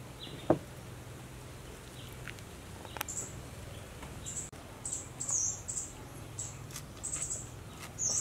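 Small birds chirping in short, high notes that come in quick groups through the second half. There is a single sharp click about half a second in.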